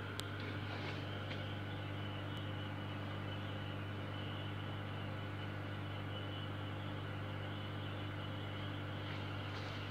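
Steady low electrical hum with a soft hiss from running aquarium equipment, with a couple of faint clicks near the start and near the end.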